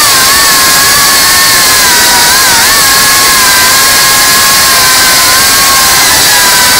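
FPV drone's electric motors and propellers whining at a near-steady pitch over a loud rushing hiss. The pitch dips briefly a couple of times as the throttle changes.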